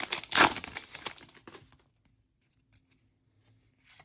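Foil wrapper of a trading card pack crinkling and tearing for about a second and a half, loudest about half a second in, then near silence with a few faint ticks.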